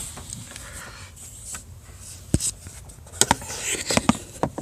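Scattered sharp clicks and light knocks of a hand tool working at the plastic dashboard trim and its screws, with one louder knock about halfway through and a quicker run of clicks near the end.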